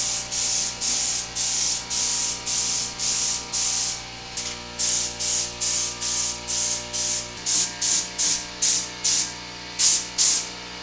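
Automotive paint spray gun hissing in short, rapid bursts, about two a second, as blue paint is sprayed onto a truck bed. Background music with held chords plays underneath.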